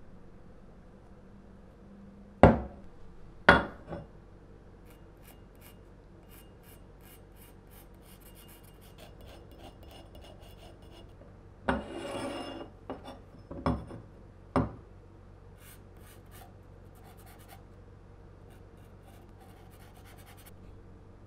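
Steel axe head handled on a wooden workbench: two sharp knocks as it is set down, then a marker pen scratching faintly across the bare metal, with a brief scrape and a few more light knocks partway through.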